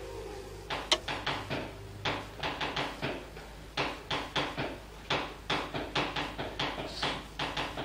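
Woven titanium exhaust heat wrap rasping as it is pulled tight and wound around a steel exhaust header. It comes as an uneven string of short scrapes, a few a second.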